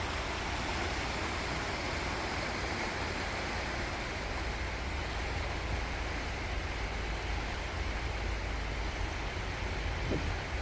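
Steady rush of a river swollen with floodwater, an even roar with a low rumble underneath.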